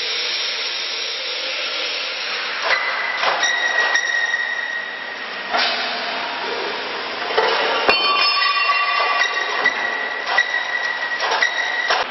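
Steel parts of a manual block-making machine knocking and ringing as its mould is handled: a few metal knocks about three seconds in, then a run of clinks and rings over the last few seconds, over a steady hiss.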